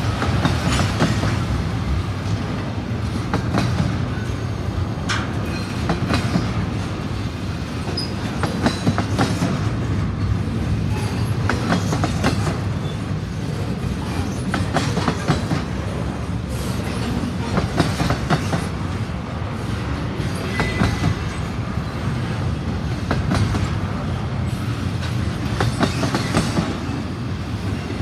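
Double-stack intermodal freight train rolling past at steady speed: a continuous low rumble of its well cars, with a rapid, uneven run of clicks as the wheels cross rail joints.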